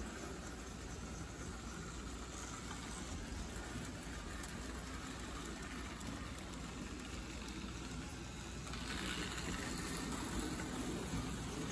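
Lionel O gauge toy trains rolling on three-rail tinplate track: a steady rumble of wheels and electric motors. It grows louder and brighter about nine seconds in as a train passes close by.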